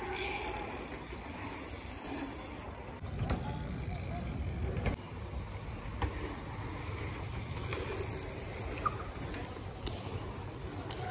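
Bicycle tyres rolling over concrete skatepark ramps: a steady, low rumble with a few sharp knocks, heaviest about three to five seconds in.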